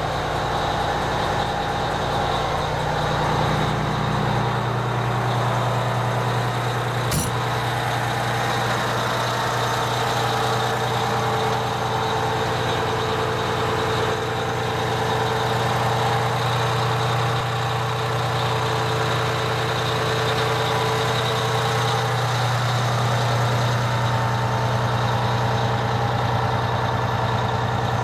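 Detroit Diesel engine of a fire engine idling steadily, with a single sharp click about seven seconds in.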